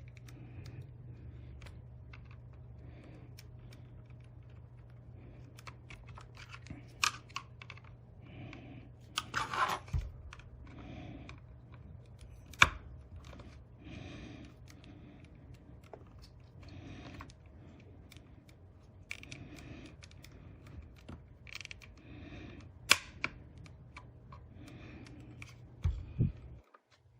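Plastic clips and case parts of a hard-drive enclosure clicking and snapping as the case is pried apart, with a few sharp cracks among lighter clicks over a low steady hum.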